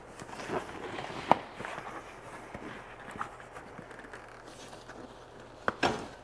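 Jeep soft-top fabric rustling and scraping as it is stretched and pulled by hand over the windshield header, with a sharp knock about a second in and two more close together near the end.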